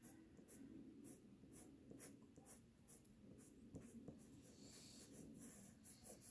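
Faint scratching of a Prismacolor colored pencil stroking across paper in short repeated strokes, about two or three a second, as color is layered and blended into hair strands.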